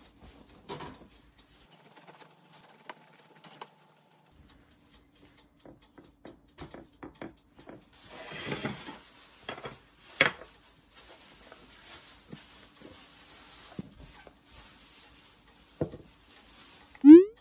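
Kitchen food-prep handling sounds: a knife cutting through a soft thawed loaf on a ceramic plate, a plate scraping and settling on a stone counter, and scattered light clicks and taps as a plastic ice cube tray of frozen pesto is handled. Near the end comes a short, loud squeak rising in pitch.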